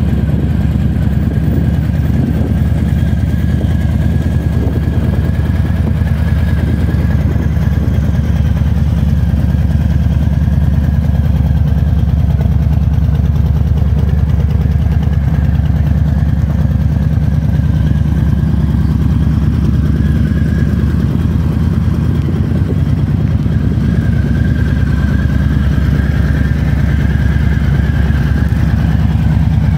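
Harley-Davidson Low Rider S's Milwaukee-Eight 114 V-twin idling steadily.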